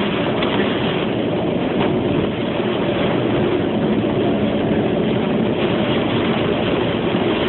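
Steady rushing noise of a vehicle running through typhoon wind and rain, with no distinct events.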